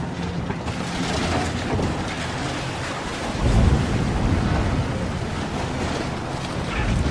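Continuous low rumbling and rushing noise, briefly louder about three and a half seconds in.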